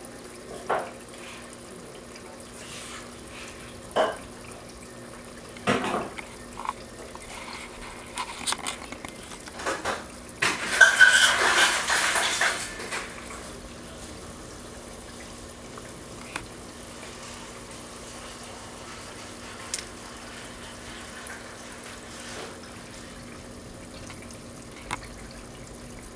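Water splashing and running for a few seconds about ten seconds in, with scattered light knocks before it, over a faint steady low hum.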